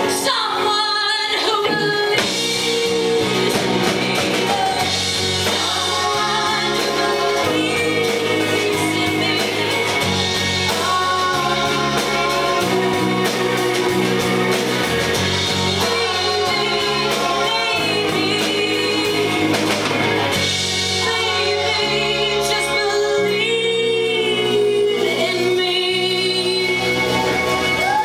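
A live band playing, with a woman singing lead over guitar and bass; the low bass notes change every second or two under the sung melody.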